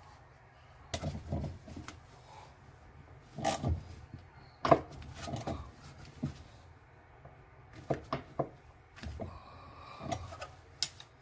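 Irregular knocks, clicks and rubbing of hands working on a top-load washer's motor and pulley, refitting the drive belt.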